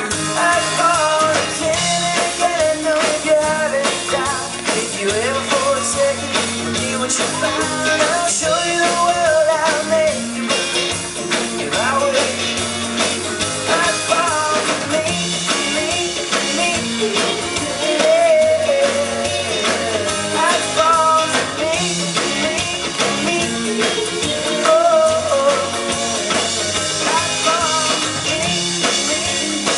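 Live pop-rock band playing: ukulele, electric guitars, bass and drum kit, with a male lead voice singing the melody in phrases over the steady beat.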